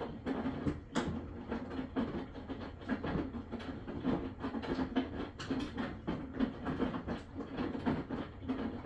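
Maytag washing machine running, a steady churning hum with frequent irregular clicks and knocks.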